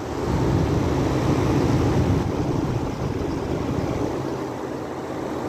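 Outdoor side of a Keystone 5,000 BTU window air conditioner running: the compressor hums steadily under the rush of the condenser fan, a little louder for the first two seconds.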